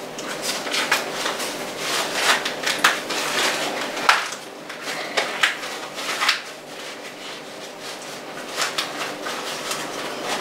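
Husks and silk being stripped by hand from an ear of corn: irregular crackling and rustling as the husk leaves tear and pull away from the cob.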